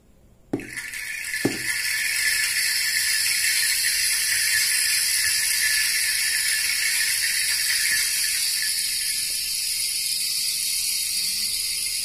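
Rain sound effect played from a Roland SPD-30 Octapad pad: two stick taps on the rubber pad, then a steady crackling hiss of rain that carries on. The sample is an approximation, about 90% water-like.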